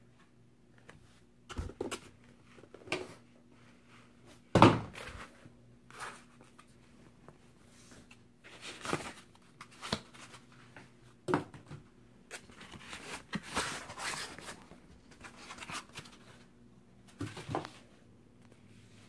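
Cardboard shipping box and its foam packing being handled and unpacked: scattered knocks and thuds, the loudest about four and a half seconds in, with rustling in between.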